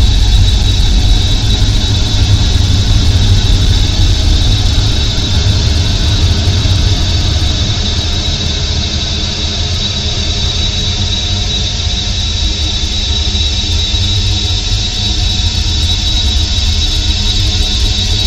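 Experimental ambient noise track: a dense, steady drone with a heavy low rumble, layers of held tones and a thin high tone on top, easing slightly in loudness midway and building back.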